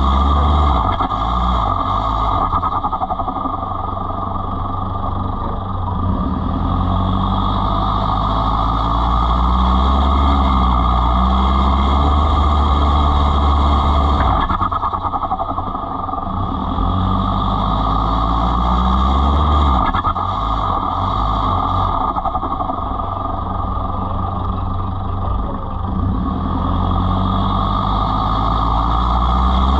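Off-road four-wheel-drive vehicle's engine running as it drives, steady and loud, its pitch rising and falling with the throttle.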